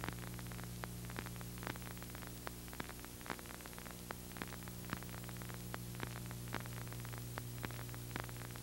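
Faint steady mains hum with hiss and many small scattered clicks: the background noise of an old analogue videotape transfer, with no music or speech.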